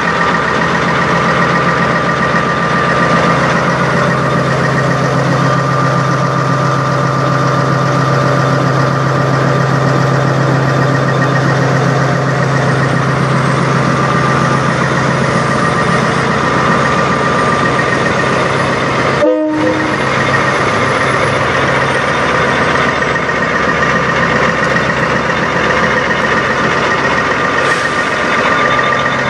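Semi truck diesel engine idling, a steady low hum with a constant whine over it, broken by a split-second gap about two-thirds of the way through.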